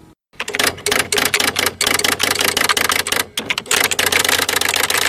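Electric typewriter typing: a fast, dense run of key strikes over the machine's low motor hum. It starts after a brief silence and breaks off for a moment about three seconds in.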